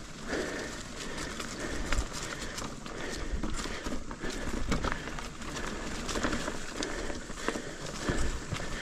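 Ibis Ripley AF full-suspension mountain bike ridden over dry, rooty singletrack: steady tyre noise on hard dirt, broken by frequent irregular clicks and knocks as the bike rattles over roots.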